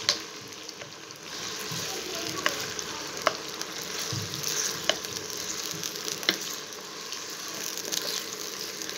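Raw chicken slices sizzling in hot oil in a wok, stirred with a wooden spatula. A few sharp clicks come through the steady sizzle where the spatula knocks against the pan.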